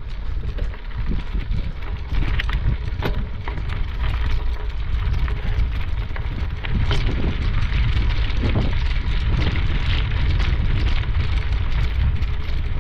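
Wind rumbling on a handheld camera's microphone while a person moves along a trail, with irregular crackling footsteps throughout.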